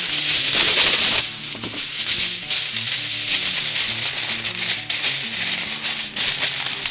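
Heavy-duty aluminium foil pulled off the roll and torn in the first second or so, the loudest part, then crinkling and rustling as it is crimped around a foil pan. Background music plays underneath.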